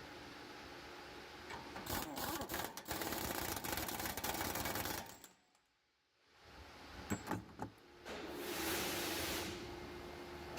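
Workshop tool noise: a dense, rapid mechanical clicking rattle for about three seconds. After a short gap come a few sharp clicks and a brief burst of hiss.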